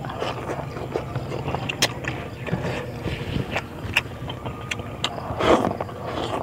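Close-miked eating by hand: wet mouth clicks, smacks and chewing on rice and fish, with a louder mouth sound a little after five seconds in. A steady low hum runs underneath.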